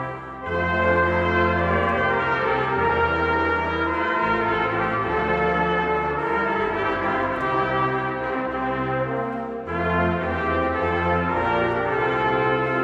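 Brass choir of trumpets, trombones and tuba playing held chords in several parts over a sustained bass. The music dips briefly between phrases just after the start and again about ten seconds in.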